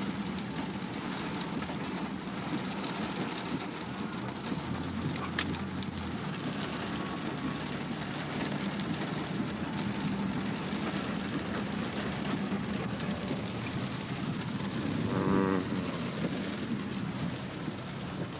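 Heavy rain on a moving car, heard from inside the cabin, over a steady low hum of the engine and tyres on the wet road.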